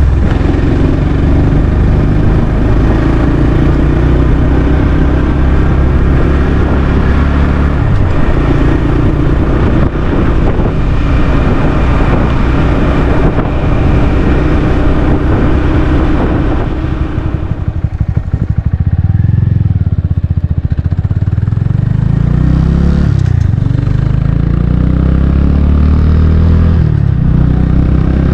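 Honda Grom 125's single-cylinder engine running, recorded close up at the exhaust. About two-thirds through it turns quieter and uneven for a few seconds, the pitch wavering, then settles back to a steady run.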